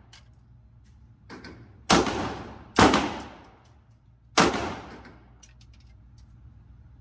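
Pistol shots in an indoor shooting range: a fainter shot about a second in, then three loud shots, the first two under a second apart and the third about a second and a half later. Each shot is followed by a short echoing tail.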